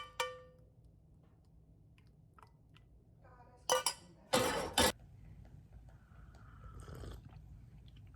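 Dishes or glassware clinking: two ringing clinks at the start and another a little before four seconds in, followed by a short, louder burst of noise.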